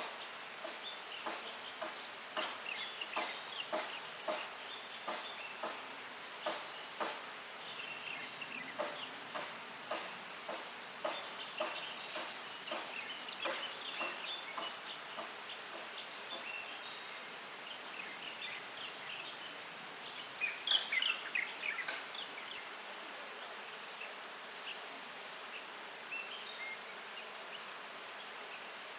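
Insects trilling steadily on two high, unbroken tones, with irregular soft ticks and rustles over the first half and a brief flurry of louder, sharper clicks about two-thirds of the way through.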